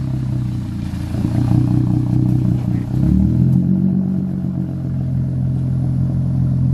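Straight-piped Lexus IS250's 2.5-litre V6 idling steadily through its open tailpipe, a low, even exhaust note with a slight shift in tone about three seconds in.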